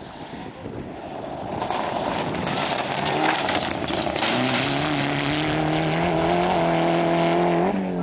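Rally car approaching at speed, growing louder, its engine note held high and stepping slightly upward in pitch. The sound cuts off abruptly just before the end.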